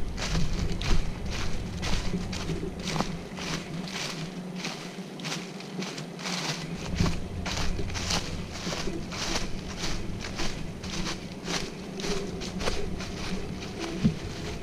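A hiker's footsteps walking steadily along a woodland trail, about two steps a second, over a steady low rumble.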